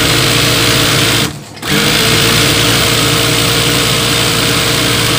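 Industrial high-speed sewing machine running steadily as it stitches a straight seam through fabric. It stops briefly about a second in, then starts again and runs on.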